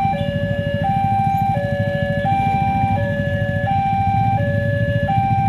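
Railway level-crossing warning alarm sounding: an electronic signal that switches back and forth between a higher and a lower tone about every three-quarters of a second, warning that a train is approaching. A steady low rumble runs underneath.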